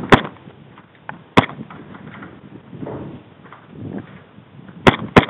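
Airsoft pistol firing single shots: four sharp cracks, one just after the start, one about a second and a half in, and two close together near the end.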